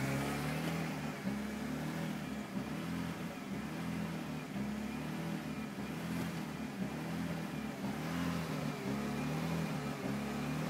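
BMW E46 engine idling unevenly, its speed wavering up and down again and again rather than holding steady. This is the erratic idle that sets in after the throttle has been blipped and released.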